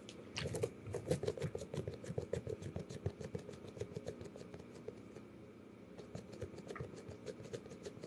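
Rapid ASMR fingernail tapping, many light taps a second. The taps come thick for the first few seconds, then thin out to scattered taps.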